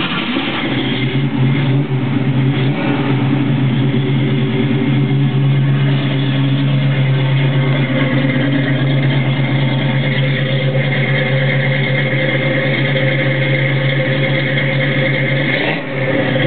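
1967 Ford Mustang's 289 V8 idling steadily through Flowmaster 40 Series Delta Flow mufflers. It is heard first from the driver's seat, then from low beside the tailpipe, and dips briefly near the end.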